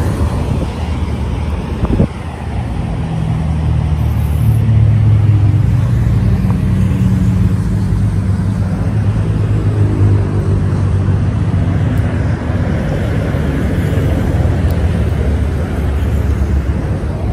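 Steady low rumble of highway traffic, swelling through the middle, with a single sharp knock about two seconds in.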